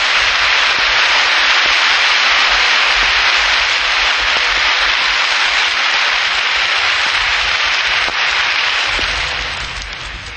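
Audience applauding steadily at the close of a speech, dying down near the end, heard through an old 1930s broadcast recording.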